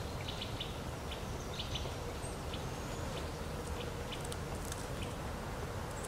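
Great tit pecking seeds out of a dried sunflower head: quick, irregular high taps in small clusters over a steady low rumble, with a faint thin bird call about two to three seconds in.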